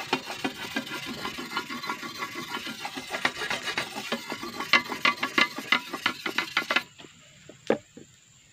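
A fine whetstone is stroked quickly back and forth along the curved steel blade of an egrek palm-harvesting sickle, a rapid rasping scrape as the edge is honed flat. The strokes stop a little before the end, and a single sharp knock follows.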